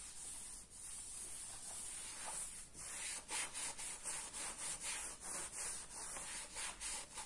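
Cloth rag wiping a thinned linseed-oil finish onto a burr elm tabletop, a soft rubbing hiss. About three seconds in it settles into quick back-and-forth strokes, roughly three a second.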